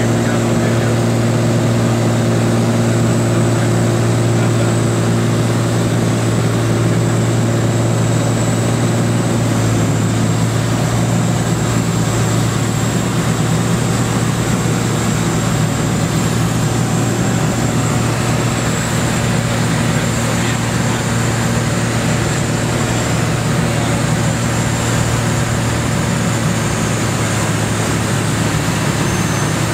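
A Columbia 350's six-cylinder Continental piston engine and propeller drone steadily, heard inside the cabin as the plane descends on approach to land.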